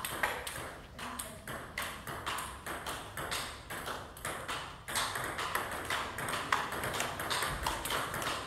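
Table tennis balls clicking: many light, irregular taps of celluloid balls bouncing on tables and bats, thicker in the second half.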